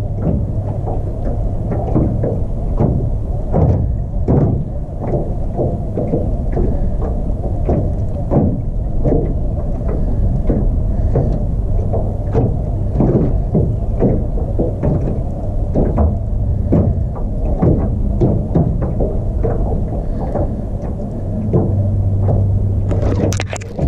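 Wind buffeting the microphone: a continuous low rumble with irregular gusty flares.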